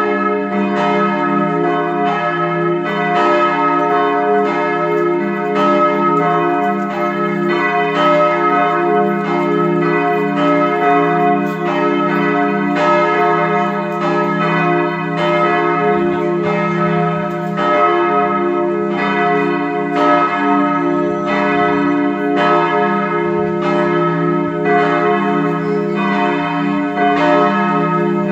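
Swinging steel church bells, cast by the Bochumer Verein in 1921, ringing together with strikes overlapping in an uneven rhythm of about two a second and a continuous ringing hum between them. The ringing bells are the d¹ and f¹, since the h° is not yet allowed to ring after the restoration.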